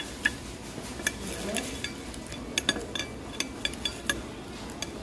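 Metal fork and knife clinking and scraping against a ceramic plate while cutting through a fried rice ball, in a string of sharp irregular clicks.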